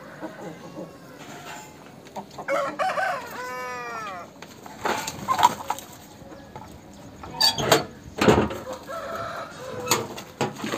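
A rooster crows about two seconds in, one call of roughly two seconds whose pitch arches up and down. Several short, sharp knocks follow in the second half.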